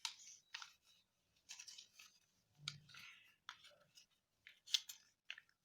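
Thick paper being folded and creased by hand: faint, scattered crinkles and scratchy rustles, with a few sharper crackles just before the end.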